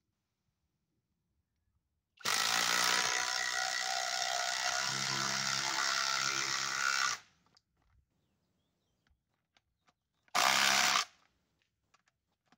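Kobalt XTR 24-volt impact driver driving a large screw into the end of a log: one long run of about five seconds, then a short burst a few seconds later to seat the screw.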